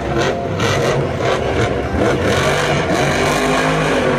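Monster Jam monster truck's supercharged V8 engine revving hard as the truck churns across a dirt arena.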